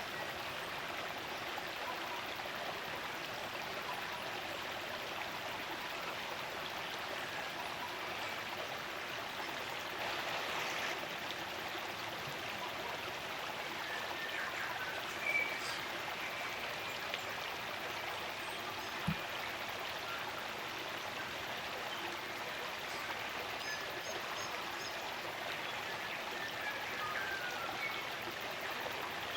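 Spring-fed stream running steadily, a constant rush of water, with a few faint bird chirps now and then and a single soft knock about two-thirds of the way through.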